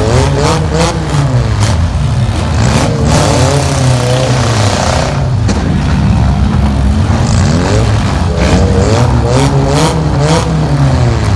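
Several demolition-derby car engines revving hard, rising and falling in pitch, with repeated sharp bangs of the cars crashing into one another.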